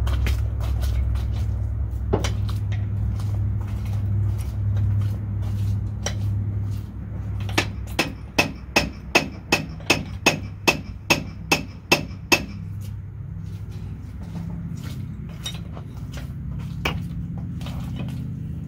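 A hammer striking metal in a quick, even run of about a dozen blows, two to three a second, each with a short metallic ring, during work on a monster truck's rear axle and differential. Scattered tool clinks and a steady low hum run underneath.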